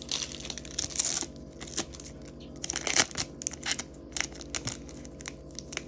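Pokémon trading cards handled and flipped through by hand: a run of short sharp clicks and brief rustles, louder about one and three seconds in, over a faint steady hum.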